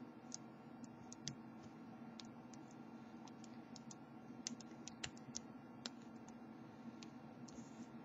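Faint, irregular light metallic clicks and ticks of a steel lock pick working the pin tumblers of a cheap padlock while a tension wrench holds light turning pressure, as the pick searches for the binding pins. A faint steady hum runs underneath.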